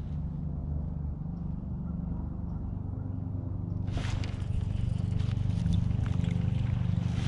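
Fishing reel being cranked steadily on a retrieve, a low rhythmic whirring. About four seconds in, a louder rush of noise joins and stays.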